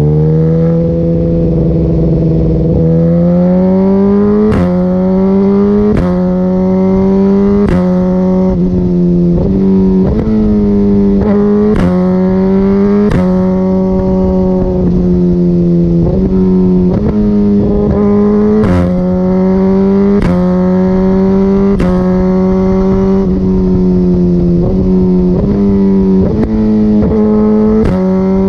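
Suzuki GSX-R1000R inline-four engine through an Akrapovic full titanium exhaust, under way and pulling through gear after gear. The pitch climbs, then drops at each quick-shifter gear change with a sharp pop from the exhaust, about a dozen times.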